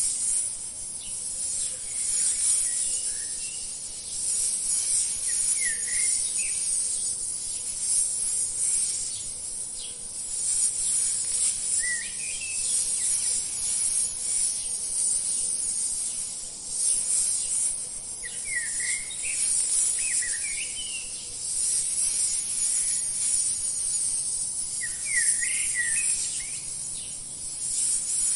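Steady, high-pitched insect chorus, with short rising bird chirps in small clusters every few seconds.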